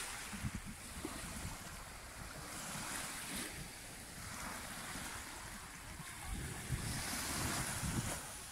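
Small waves breaking and washing up a gravelly sand beach, the wash swelling about three seconds in and again near the end. Wind buffets the microphone with a low rumble.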